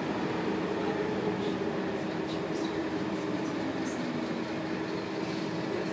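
Cabin noise of a Scania K280UB bus under way: its 9.3-litre five-cylinder Scania DC9 engine and ZF Ecomat automatic gearbox running with a steady hum under road noise, with a few faint ticks and rattles.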